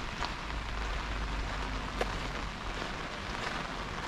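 Pouring rain falling steadily as an even hiss, with a few louder single drops ticking close by, the sharpest about two seconds in, over a low rumble.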